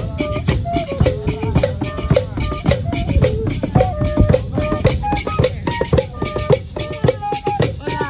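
Traditional Embera music played live: a side-blown cane flute plays a stepping melody of held notes over a steady beat of drum and shaken percussion.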